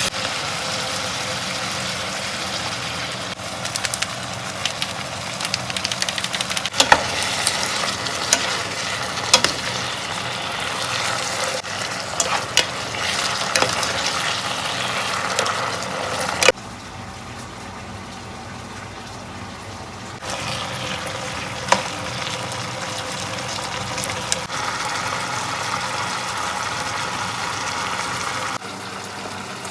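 Food sizzling in a frying pan as it is stirred, with frequent clicks and taps of a utensil against the pan. About halfway through the sizzle drops suddenly quieter for a few seconds, then comes back.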